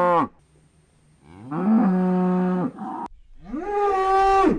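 Cattle mooing: a moo cuts off just after the start, then after a short quiet another moo rises and holds for about a second and a half. Near the end a higher-pitched calf moo rises, holds and falls away.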